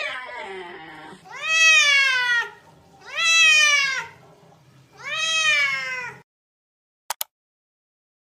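Domestic cat meowing: a short falling meow, then three long, loud meows, each rising and then falling in pitch, cut off abruptly about six seconds in. Two quick sharp ticks follow near the end.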